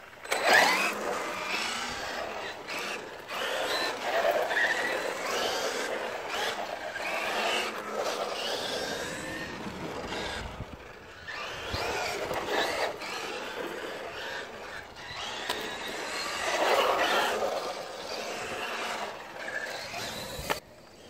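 Traxxas MAXX RC monster truck's brushless electric motor and drivetrain whining as it launches and runs on concrete, the pitch rising and falling with the throttle in several swells, with tyre noise on the cement. The sound cuts off suddenly just before the end.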